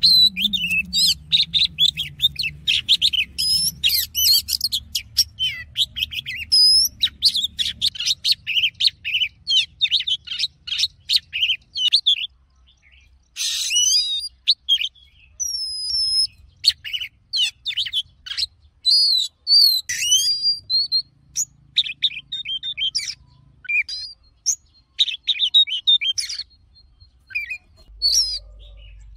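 Oriental magpie-robin singing a long, varied song of rapid whistles, trills and chattering notes, in the wild-style 'giọng rừng' song used for contest singing and for tutoring young birds. The song breaks off briefly about twelve seconds in and again a little past the two-thirds mark.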